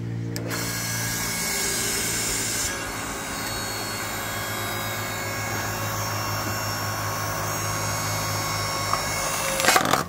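Ryobi 5-ton electric log splitter's motor and hydraulic pump running under load as the ram drives a log against the wedge, a steady mechanical whine over a low hum. Near the end the log splits with several loud, sharp cracks.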